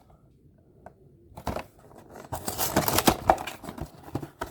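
Toy packaging being handled and opened: crackling rustles and small clicks starting about a second and a half in and growing busier after that.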